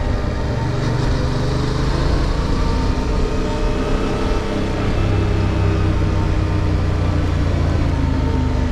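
Yamaha MT-07's 689 cc parallel-twin engine running steadily while the motorcycle is ridden along a road, under a steady rushing noise.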